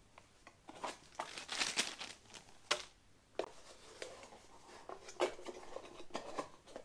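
Plastic packaging crinkling and rustling, mixed with sharp clicks and light knocks of small speaker wall-mount bracket parts being handled. The longest crinkle comes about a second in; single clicks follow near the three-second mark and again later.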